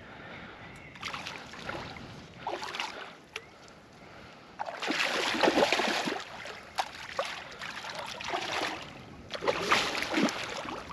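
Water splashing in irregular bursts, loudest about five to six seconds in, as a hooked grass carp thrashes at the surface close to the bank while being brought to the landing net.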